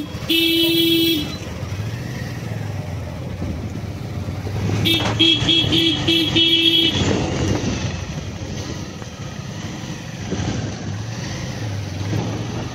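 Vehicle horn honking in street traffic. One long honk sounds at the start, and around the middle comes a quick string of short toots ending in a longer one, over the steady running of engines.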